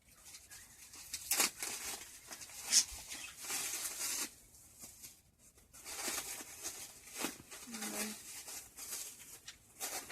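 Packaging being handled and unwrapped: irregular crinkling and rustling with a few sharper tearing crackles.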